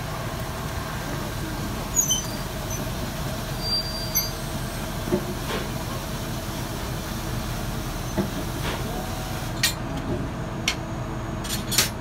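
Ōigawa Railway ED901 electric locomotive creeping slowly at coupling speed with a steady low rumble and hum. Several sharp metallic clanks come from the couplers and running gear, one about two seconds in and a cluster near the end as it closes up on the train to couple.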